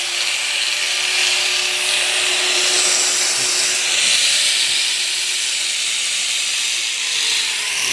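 Angle grinder with a cutting disc cutting through the sheet metal of a tractor's mudguard: a steady, hissing grind with a faint motor hum under it that fades about six seconds in.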